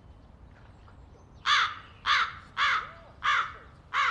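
A crow cawing five times in a quick, even series, starting about a second and a half in, used as a comic sound effect over an awkward silence.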